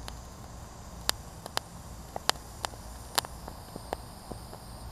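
Squash bug eggs popping under the hot tip of a butane soldering torch: about ten sharp, small pops at irregular intervals.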